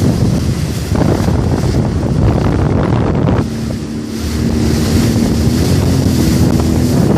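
Jet ski running on the water, with heavy wind buffeting the microphone and splashing. A steady engine hum comes through clearly about halfway through.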